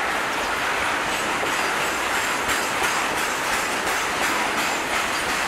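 Steel wheels of a freight train of BTPN tank wagons rolling steadily past, with clicks over the rail joints and a faint high wheel squeal on the curve.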